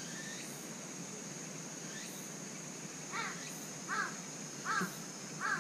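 A crow cawing, a run of four short caws a little under a second apart, starting about halfway through.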